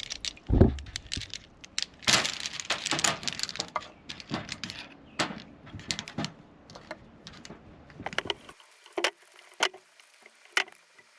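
Carabiners clinking and clacking, their spring gates snapping shut again and again in a string of sharp clicks: the gates closing freely once the gunk has been washed out of the mechanism.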